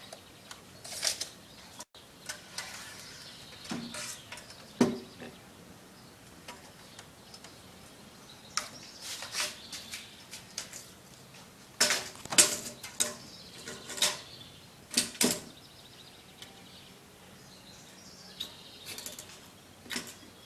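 Irregular knocks, taps and short scrapes of a wooden board and hand tools being handled and set down, with no saw running.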